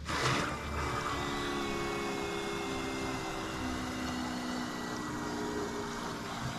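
BMW N54's brand-new electric water pump running during the coolant bleed, before the engine is started: a steady whir with a few steady tones over a hiss, after a short burst of noise right at the start.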